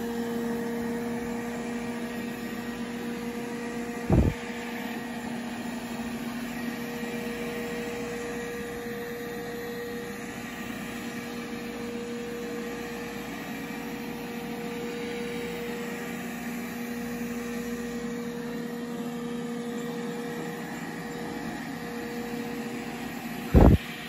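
Roborock S5 robot vacuum running in its quiet suction mode: a steady fan whir with a two-note hum under it. Two brief knocks, about four seconds in and near the end.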